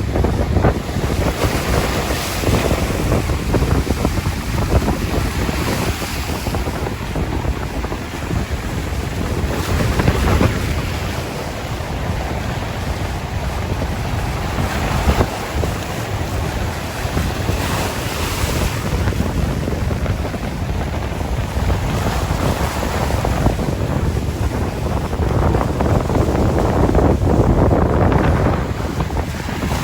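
Sea surf washing onto a shore in irregular swells every few seconds, over steady wind with a deep rumble of wind on the microphone.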